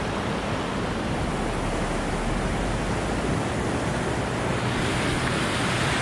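Steady rush of river water running over rocky rapids and small falls, with a low rumble underneath that drops away about halfway through.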